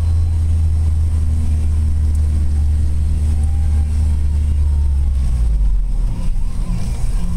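1995 Jeep Wrangler YJ engine running as the Jeep drives, a steady low drone that drops lower a little past halfway.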